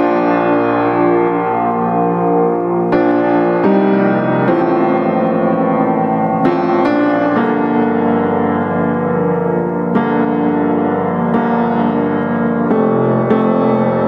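Background piano music: slow, sustained chords, each ringing on until the next comes in every one to three seconds.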